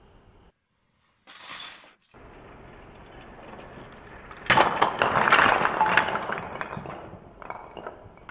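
A Lego Technic pull-back toy car rolls across carpet and crashes into a stacked wall of wooden toy blocks. About four and a half seconds in the blocks tumble down in a loud clatter of many knocks that fades over a couple of seconds, with a few more clinks near the end.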